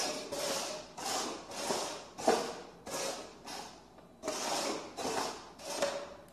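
Plastic cups sliding and scraping across a wooden floor as they are shuffled by hand, about two slides a second, stopping near the end.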